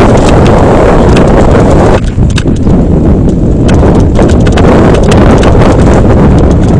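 Mountain bike rattling over a rough rocky downhill trail at speed, with wind blasting the microphone: a loud, continuous rumble with rapid clicks and knocks from the bike's chain and frame. About two seconds in the hiss thins and the individual knocks stand out more.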